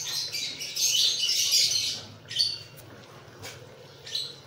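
Small birds chirping: a loud, rapid burst of high-pitched chattering for about two seconds, then two short separate chirps.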